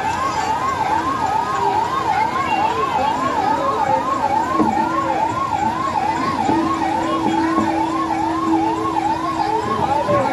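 Electronic siren yelping: a fast, even rise-and-fall wail repeating about two and a half times a second, with a steady lower drone joining about halfway through.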